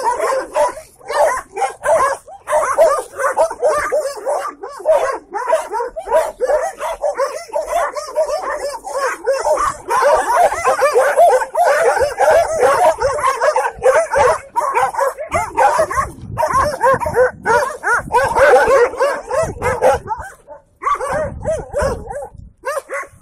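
A pack of street dogs barking and yelping together, many overlapping barks with hardly a break, easing off briefly near the end.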